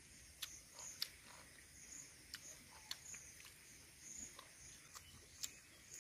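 Faint eating sounds of a man biting and chewing: scattered sharp mouth clicks and smacks over a quiet hiss.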